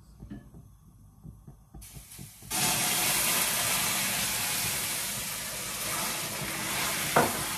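Water poured into a pan of hot caramel, hissing and sizzling as it boils up; the loud hiss starts suddenly a couple of seconds in and keeps going, after a few light knocks of the glass and pan being handled.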